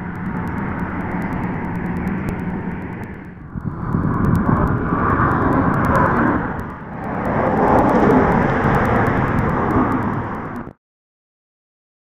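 Wind buffeting the microphone: a loud, rough rumble that surges in two strong gusts and cuts off suddenly near the end.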